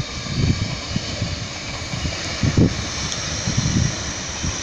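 Distant Alstom Coradia LINT diesel railcar running steadily across the station tracks, with gusts of wind buffeting the microphone in irregular low thumps.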